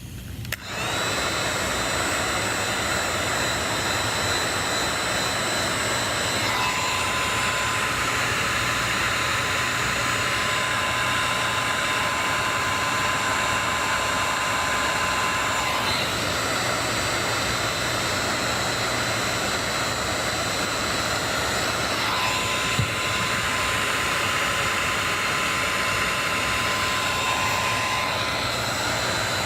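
Handheld hot-air blower switched on about a second in and running steadily: a loud airy rush with a high whine, and a lower steady tone that comes in twice and drops out. It is heating the iPad's screen edge to soften the adhesive for opening.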